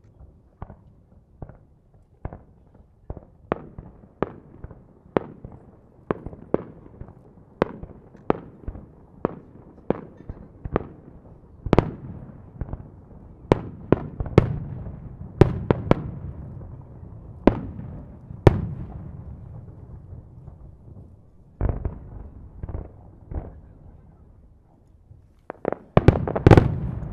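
Aerial firework shells bursting in a string of sharp bangs, about one or two a second, over a low echoing rumble. After a lull past the middle, a rapid cluster of the loudest bangs comes near the end.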